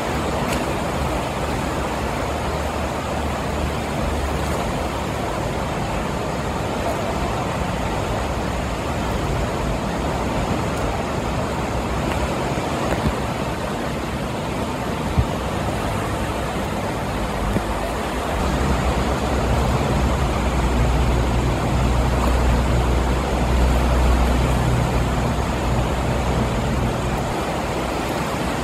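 Steady rushing noise of a fast-flowing flooded river, with a deeper rumble swelling about two-thirds of the way in and easing near the end.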